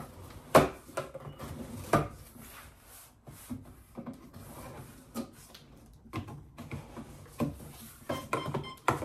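Cardboard shipping box and its packing being handled while it is opened: rubbing and scraping of cardboard, broken by several sharp knocks, the loudest about half a second in.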